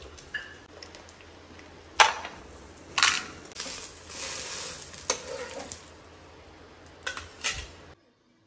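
Kitchen clatter: several sharp clinks and knocks of utensils against a shaker cup, a frying pan and a steel plate, with a short stretch of sizzling near the middle as food is flipped with a spatula on a flat pan. It stops abruptly near the end.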